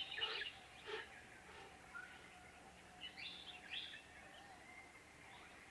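Faint wild birdsong: short bursts of high chirps, a few near the start, one about a second in, and a cluster around three to four seconds in.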